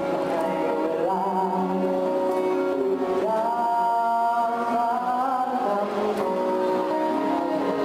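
Boys singing a song into microphones, accompanied by an acoustic guitar, with a long held note in the middle.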